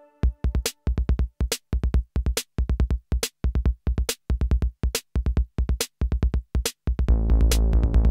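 Electronic music: a drum-machine beat of short low kick thumps and sharp clicks in a chopped, stop-start pattern, with dead gaps between hits. About a second before the end a sustained bass and synth layer comes in under the beat.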